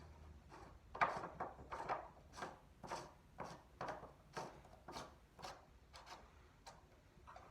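Footsteps, about two a second, each a short scrape or crunch, starting about a second in and going on steadily.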